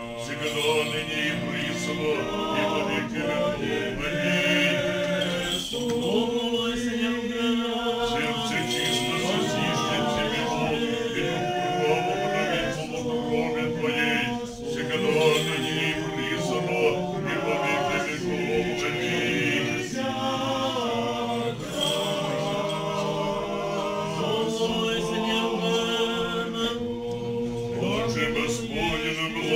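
Church choir singing Orthodox liturgical chant a cappella: several voices in harmony, in long sustained phrases.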